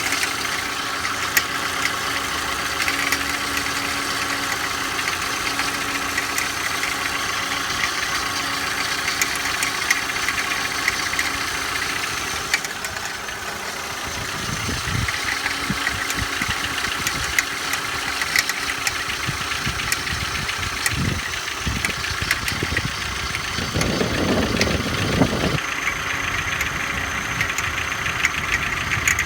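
Škoda Octavia engine idling cold, with a steady run of sharp ticks over the engine hum: the extraneous noise that the owner hears only when the engine is cold.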